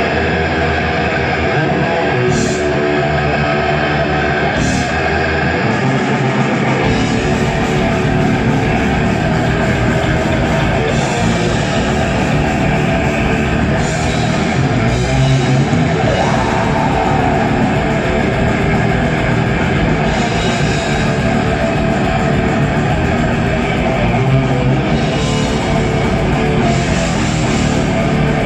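Heavy metal band playing live: distorted electric guitars over bass and a drum kit. The low end fills in and the drumming gets denser about seven seconds in.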